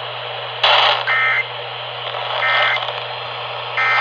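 Weather radio's EAS end-of-message data tones: three short, buzzy digital bursts about a second apart, marking the end of the flash flood warning. They sit over a steady radio static hiss and low hum, with a louder burst of static just before the first.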